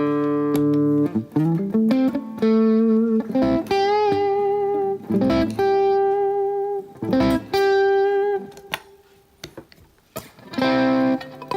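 Electric guitar played through a drive pedal: single notes and chords struck and held for a second or so each, with short breaks between, and a quiet pause of about two seconds late on before another chord rings out.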